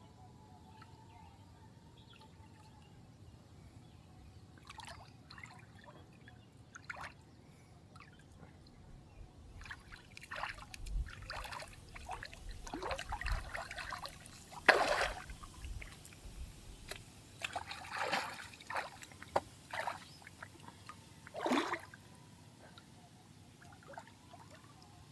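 Water splashing and sloshing in irregular bursts, starting a few seconds in. The loudest splash comes about fifteen seconds in and another strong one near the end.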